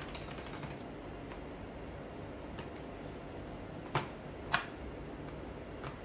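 Handling noise at a hand-cranked pasta machine as a sheet of noodle dough is taken off the rollers and laid on a wooden board: two sharp clicks about half a second apart around four seconds in, with a few fainter ticks, over a steady low room rumble.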